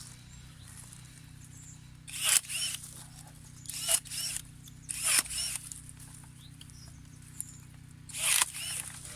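Cordless battery secateurs running four times, a short motor whine with a snap each time the blade closes through a branch, one of them about 20 mm thick. A low steady hum runs underneath.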